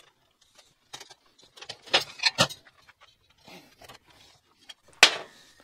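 Light metallic clinks and knocks of a dimple die set being fitted into a drilled hole in a sheet-metal bracket and pressed in a bench vise, with a cluster of clinks about two seconds in and a sharp knock near the end.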